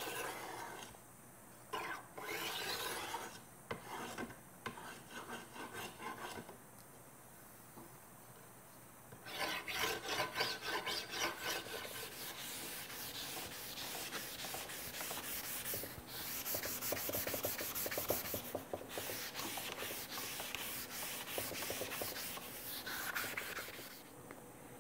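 Hand sanding along a profiled cocobolo strip with sandpaper: rough rubbing strokes of abrasive on wood. At first a few separate strokes with short pauses, then, after a brief lull about nine seconds in, quick back-and-forth strokes that go on almost without a break.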